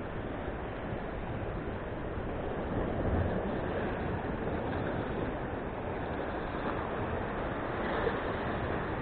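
Surf breaking and washing over shoreline rocks, a steady rushing that swells a little about three seconds in, with wind buffeting the microphone.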